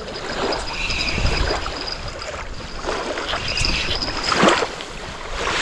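Spinning reel cranked on a feeder rod to bring in a freshly hooked fish, with water sloshing and splashing as the fish is drawn in; a stronger splash-like surge comes about four and a half seconds in.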